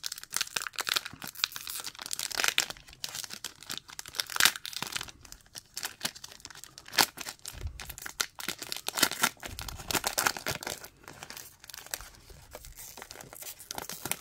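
Foil-lined Select AFL Footy Stars 2024 trading-card pack being torn open and crinkled by hand, with dense irregular crackles, then the cards slid out of the wrapper. A few dull low bumps sound around eight and ten seconds in.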